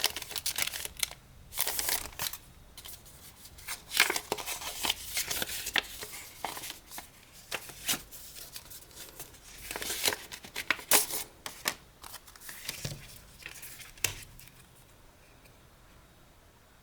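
Paper packaging being handled and opened: irregular rustling, crinkling and tearing of an envelope-style album package, with sharp little clicks of paper and card. It dies down about two seconds before the end.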